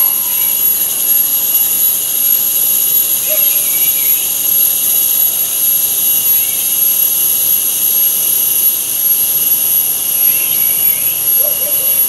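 Insect chorus in the forest canopy: a loud, steady, high-pitched drone in several layers, with a few faint short calls about three seconds in and again near the end.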